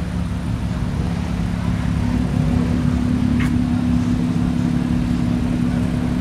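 A car engine idling steadily, with a low, even drone.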